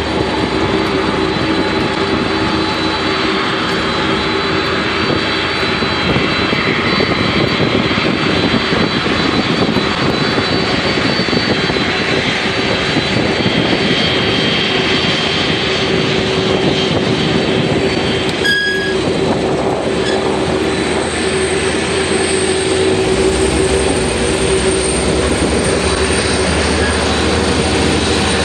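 Boeing 747's four jet engines running at taxi power, a steady loud whine over a broad roar. A deeper rumble grows louder about two-thirds of the way through, and there is one sharp click midway.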